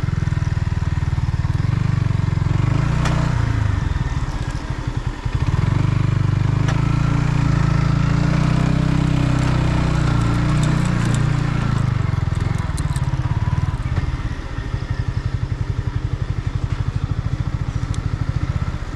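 Yamaha MT-15's 155 cc single-cylinder engine running under way through its stock exhaust, heard from the rider's seat with wind rushing past. The engine eases off briefly twice.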